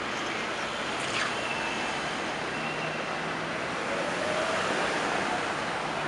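Busy downtown street ambience: a steady wash of traffic and passing crowds, with a short high squeak sliding down in pitch about a second in.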